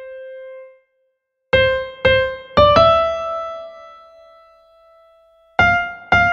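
Intro theme music on a keyboard: single notes struck one after another, each dying away. After a short pause near the start, four quick notes lead into one that rings out for about three seconds, and two more notes follow near the end.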